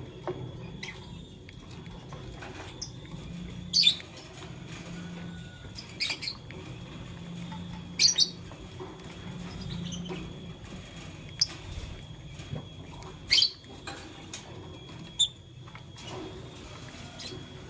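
Lovebird giving short, sharp chirps, about half a dozen scattered singly and in pairs, over a steady low background hum.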